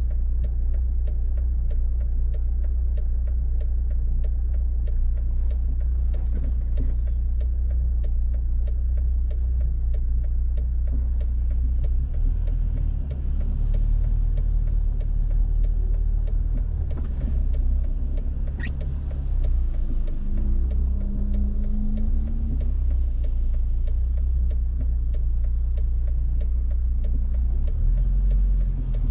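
A car driving through city streets: a steady low rumble of engine and tyres, with an engine note rising briefly about two-thirds of the way in.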